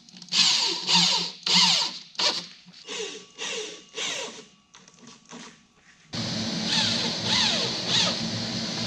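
Electric drill driving screws into the MDF panels of a subwoofer box, in a series of short bursts whose pitch falls as each one winds down. A longer unbroken run starts about six seconds in.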